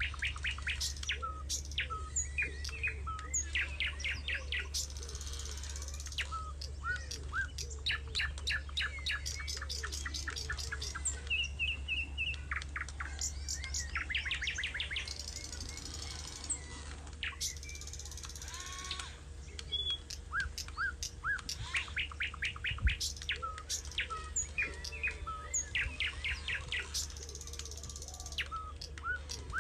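Birds chirping and trilling, many short calls and rapid trilled runs, over a steady low hum. A single sharp knock comes about two-thirds of the way through.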